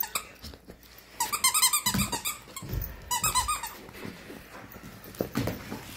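Squeaky dog toy squeaked in two quick runs of rapid squeaks as a puppy chomps on it, the first run about a second long, the second shorter.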